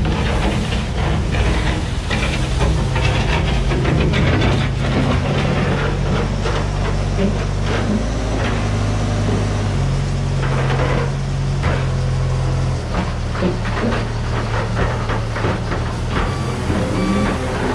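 A large engine running steadily, its pitch stepping up and down a few times, with clattering knocks and hissing over it.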